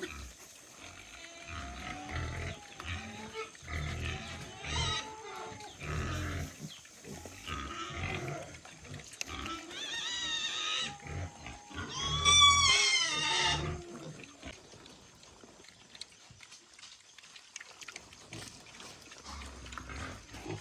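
Pigs grunting, with high squeals about ten seconds in and the loudest squeal a couple of seconds later, then quieter for the last several seconds.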